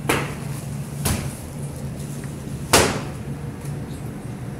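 Three sharp knocks over a steady low hum, the loudest knock coming a little under three seconds in.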